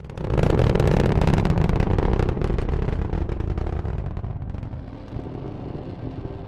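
Rocket engine sound effect: a loud crackling rumble that dies down after about four seconds. Music with held tones comes in near the end.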